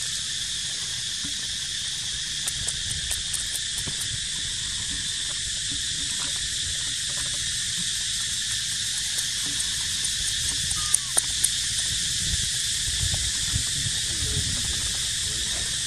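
Steady, high-pitched chorus of insects droning without a break. Three sharp clicks come close together about eleven seconds in.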